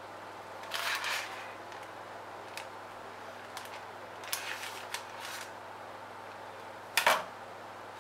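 Baking paper rustling and crinkling in short bursts as it is peeled back from under a cheesecake, with small ticks and a sharp knock about seven seconds in, over a faint steady hum.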